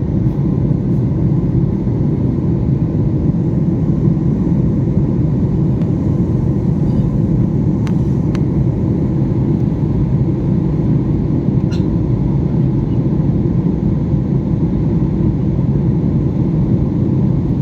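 Steady low rumble of an airliner in flight heard from inside the cabin, engine and airflow noise holding level, with a couple of faint clicks.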